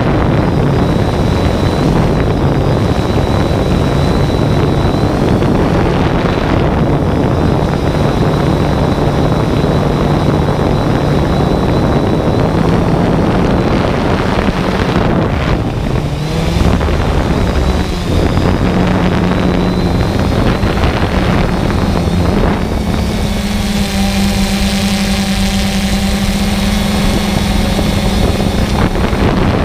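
Quadcopter drone's motors and propellers buzzing steadily in flight, the pitch drifting up and down as it manoeuvres, with wind rushing over the microphone. In the last few seconds the buzz settles at a higher, steadier pitch.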